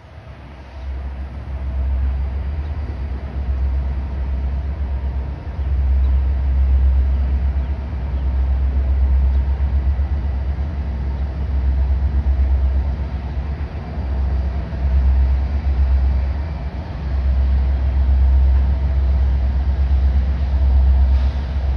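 Union Pacific manifest freight train running across a bridge: a continuous deep rumble that swells and eases, with faint steady tones above it.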